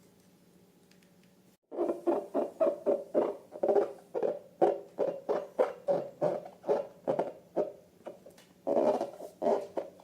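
Rapid run of short rubbery squeaks, about three to four a second, starting a couple of seconds in: a latex balloon being squeezed and rubbed.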